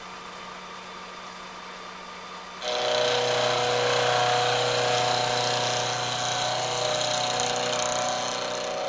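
A vertical milling machine's cutter milling a flat on a metal shaft held in a dividing head. The spindle hums steadily at first. About two and a half seconds in, a much louder cutting sound with a steady ring comes in suddenly, holds for about six seconds, and falls away near the end.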